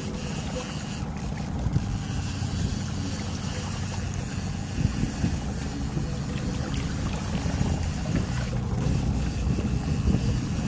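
Boat's outboard motor running steadily, a low even hum, with wind and water hiss over it.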